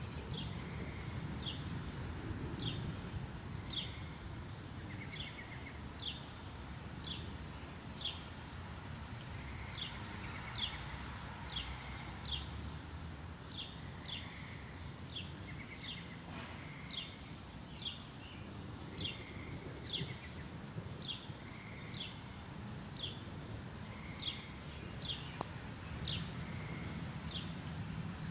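A bird chirping over and over, short falling chirps about once a second, with a few higher short calls mixed in. A low, steady background noise runs underneath.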